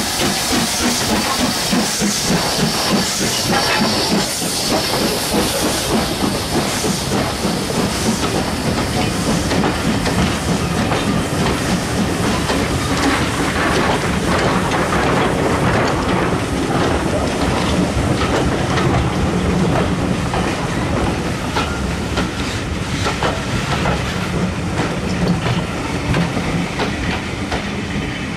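LMS 'Black Five' 4-6-0 steam locomotive passing close by, with a rhythmic hiss of steam from its open cylinder drain cocks over the first several seconds. Its train of carriages then rolls past with steady clickety-clack of wheels over the rail joints.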